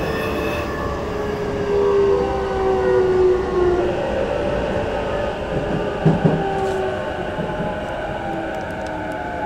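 Inside an E233-5000 series electric train as it slows for a station: several motor tones fall slowly in pitch over the steady rumble of wheels on rails. A short knock comes about six seconds in.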